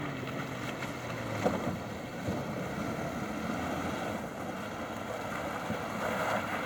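An off-road vehicle's engine running with a steady hum that drops away about a second and a half in, leaving an even rushing noise.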